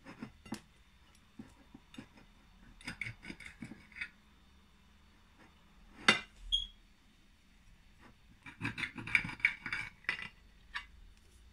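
A metal cake server cutting through a soft cake, scraping and tapping against the plate beneath. There is one sharp clink with a brief ring about six seconds in, and a busy run of scraping and tapping near the end.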